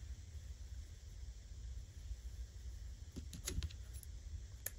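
Soft handling sounds of paper and fabric trim being arranged on a journal page: a few light clicks and rustles, mostly in the second half, over a low steady hum.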